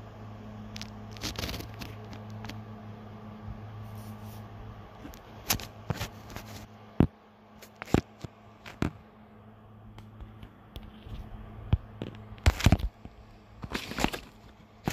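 Handling noise of a phone held close to the microphone: fingers scraping and rubbing on it, with scattered sharp clicks and knocks that bunch up in the second half. A low steady hum underneath fades out after the first few seconds.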